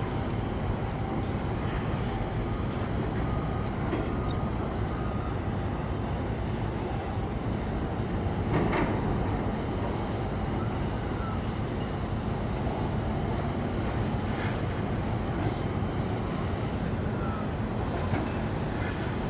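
Steady low rumble of outdoor harbour noise, with a few faint short high chirps and a brief louder swell about nine seconds in.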